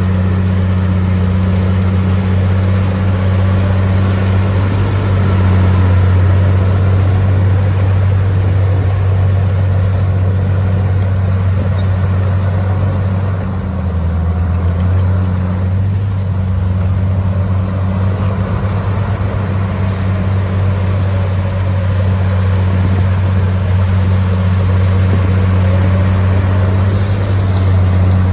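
Bulldozer's diesel engine running steadily, with a brief dip in level about halfway through.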